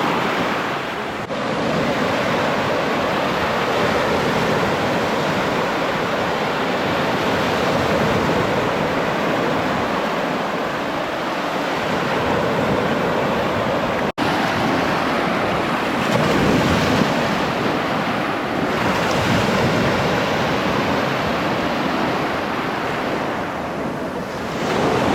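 Gulf of Mexico surf washing up on the beach, a steady rush of waves, with wind buffeting the microphone. The sound drops out for an instant about halfway through.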